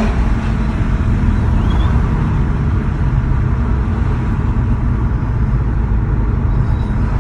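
Audi RS3 8V2's turbocharged 2.5-litre five-cylinder engine running steadily at low revs, a low, even rumble with no revving.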